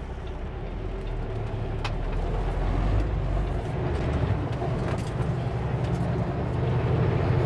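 Kenworth W900L semi truck's diesel engine running, a steady low drone that grows gradually louder, with a change in its low pitch about three and a half seconds in.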